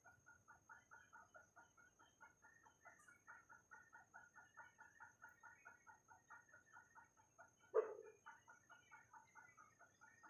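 Faint animal calls: a rapid, even run of short chirps, about five a second, with one louder call nearly eight seconds in.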